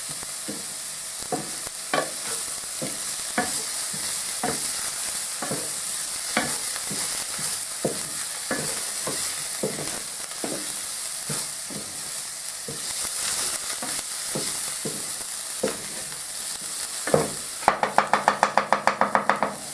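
Garlic frying in olive oil, a steady sizzle, stirred in the pan with a utensil that knocks against it about once a second. Near the end comes a quick run of about a dozen knocks.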